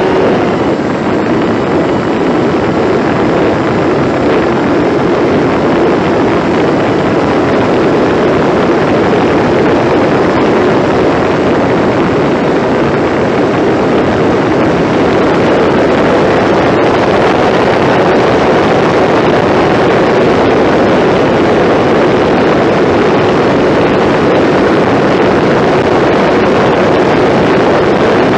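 Engine and propeller of a radio-controlled model airplane running steadily at high power in flight, with air rushing over the onboard camera's microphone.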